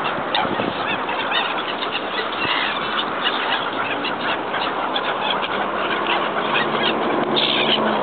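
A crowd of gulls chattering: many short calls overlapping without a break, one call standing out a little louder near the end.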